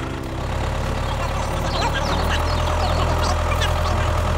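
Tractor engine running at a steady idle, a low even drone, with short high chirps scattered over it.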